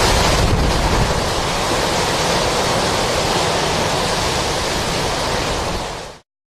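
Hurricane Wilma's winds making a loud, steady rush of noise. It cuts off abruptly about six seconds in.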